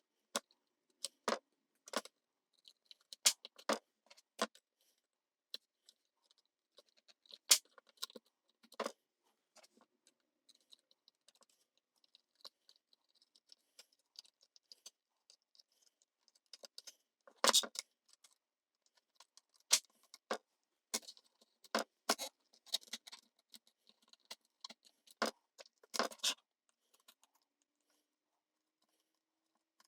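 X-Acto knife blade scraping old silicone off a circuit board, heard as short, irregular scratches and clicks with near silence between them.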